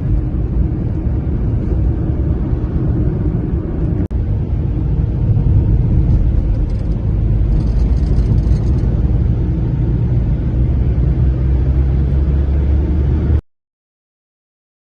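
Steady low rumbling noise with no clear pitch or rhythm, briefly dipping about four seconds in and cutting off abruptly near the end.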